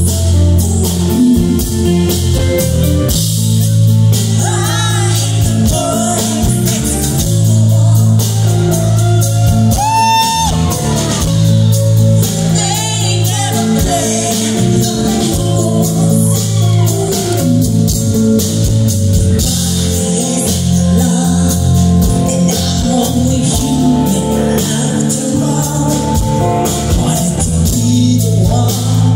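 Live band music with a woman singing lead over electric bass, drums and keyboards, loud and bass-heavy as picked up among the audience.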